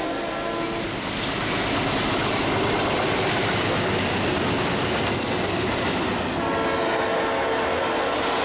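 BNSF freight train with diesel locomotives passing close at speed. Its multi-note air horn chord ends about a second in, then a loud steady rumble and wheel noise as the locomotives and double-stack container cars go by. A steady chord of tones comes back in about six seconds in.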